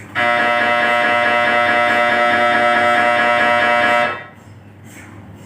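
GE Signa MRI scanner running a scan sequence: the gradient coils give a loud, steady buzzing tone with a fast rhythmic pulsing, which cuts off suddenly about four seconds in.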